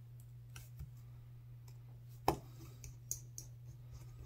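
Small scattered clicks and taps of tools and phone parts being handled during a phone repair, with one sharper click about two seconds in, over a steady low hum.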